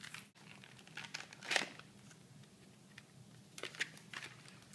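Clear plastic blister packaging being handled and pulled apart, crinkling with scattered sharp crackles and clicks. The loudest crackle comes about a second and a half in, and a few more come near the end.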